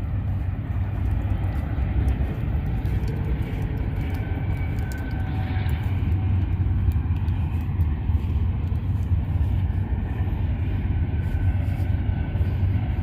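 Steady low rumble of wind buffeting the microphone outdoors, with a few faint ticks.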